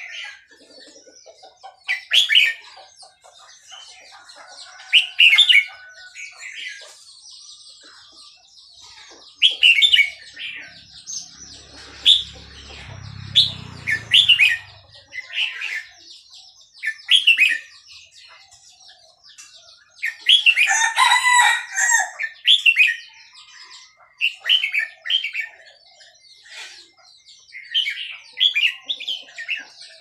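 Red-whiskered bulbul of Burmese stock singing short, bright phrases every two to three seconds. A rooster crows for about two seconds around two-thirds of the way through.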